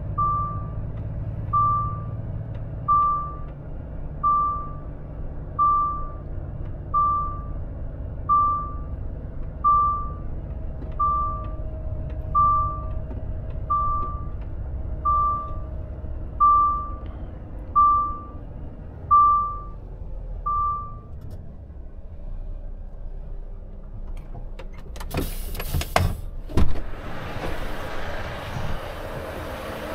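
Reversing beeper of a Volvo FH truck sounding a single steady beep about once every one and a half seconds as the truck backs up, over the low hum of its diesel engine, heard from inside the cab. The beeping stops about two-thirds of the way through. Near the end a few clunks come as the cab door is opened, and outside noise comes in.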